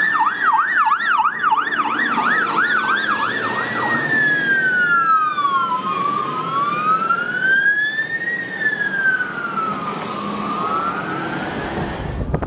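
Emergency sirens on passing fire-service vehicles. A fast yelp of about four pitch sweeps a second runs over a slower wail, then drops out about four seconds in. From there two wailing sirens, slightly out of step, rise and fall slowly over about four seconds per cycle.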